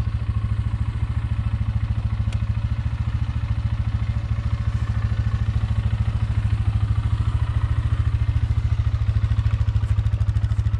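ATV (four-wheeler) engine running steadily at a constant low speed, close by, with an even pulsing beat.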